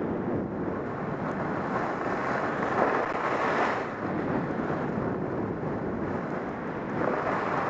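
Wind rushing over the microphone of a helmet-mounted camera, mixed with the hiss of skis running over groomed corduroy snow during a downhill run. The rush swells around three to four seconds in and again near the end.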